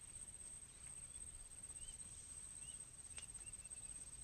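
Faint outdoor ambience: a few short, high bird chirps about two seconds in and again near three seconds, over a steady high-pitched whine.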